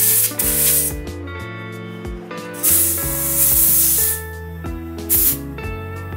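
Air hissing in several irregular bursts from a hand pump inflating a mountain bike's front tyre through a pump head held on the valve. The longest burst is about a second, near the middle. Background music with sustained notes plays throughout.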